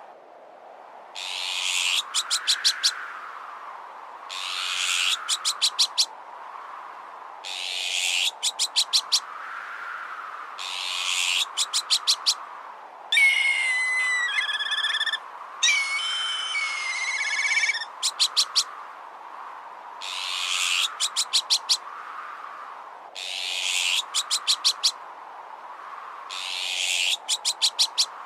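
Bird-deterrent sound mix of azure-winged magpie alarm calls, black kite calls, metal clatter and strong wind. A harsh, noisy burst ending in a quick rattle of five or six clicks repeats about every three seconds over a steady whooshing wind. Around the middle come two stretches of whistled, gliding bird calls.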